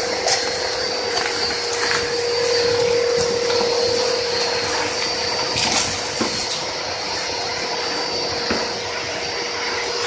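Two-motor 2.2 kW industrial vacuum cleaner running steadily with a constant whining hum, with a few short clicks and knocks scattered through.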